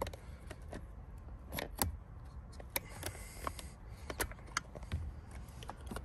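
Scattered light clicks and scrapes of a small pick prying at the steering-wheel airbag module's retaining clips, with plastic and metal parts of the wheel knocking.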